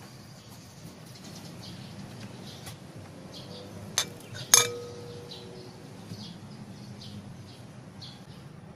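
Two clinks about half a second apart: a ceramic plate knocking against a glass mixing bowl as margarine is scraped off it with a spatula. The second clink is the louder and rings briefly. Faint bird chirps run through the background.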